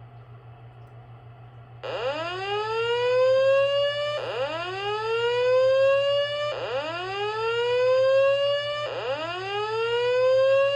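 Fire alarm speaker strobe, a System Sensor SPSR, sounding the slow whoop alert tone of a voice evacuation message: four rising whoops, each about two and a half seconds long, starting about two seconds in. A steady low hum runs under it.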